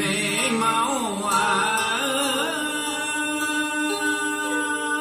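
A recorded song played back through Bose 6.2 bookshelf speakers: a male voice singing long, wavering notes over a steady held accompaniment.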